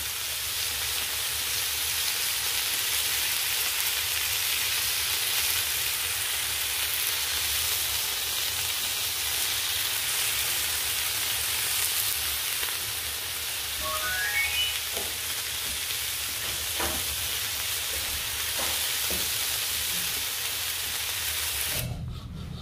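Ribeye steak sizzling in a hot pan, a steady frying hiss. Partway through there is a brief rising run of faint notes and a few small ticks, and the hiss cuts off abruptly near the end.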